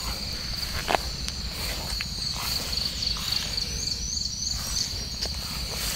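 A cricket trilling steadily and high-pitched, with a few faint higher chirps in the middle. Footsteps and rustling through dry grass add a few short clicks and crackles.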